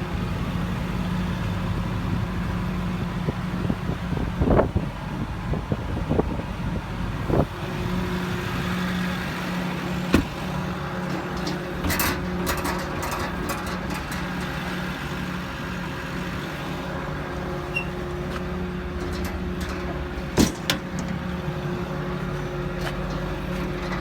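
2010 Ford F-550's diesel engine idling steadily, with several sharp knocks and clicks over the top, the loudest about ten and twenty seconds in.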